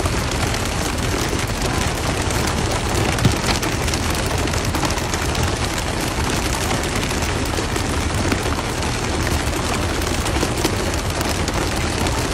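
Steady rushing hiss of water spray and splashing against the side of a pole-and-line tuna boat, with a low engine hum underneath. A few sharp knocks stand out, about three seconds in and twice more later.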